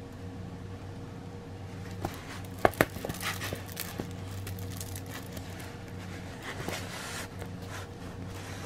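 Clear plastic cover film on a diamond painting canvas crinkling as the canvas is handled and flattened, with a couple of sharp clicks about two and a half seconds in, over a steady low hum.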